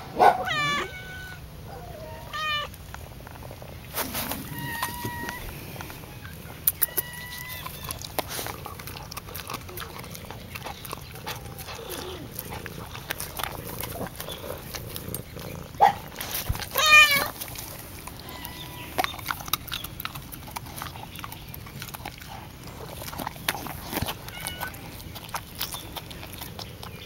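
Domestic cat meowing several times, with drawn-out wavering calls. Two come near the start and the loudest comes a little past the middle.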